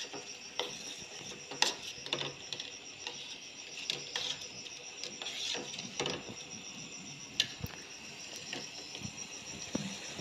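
A metal spoon scraping and clinking against a steel pot in irregular strokes as a thick, foaming soap mixture is stirred.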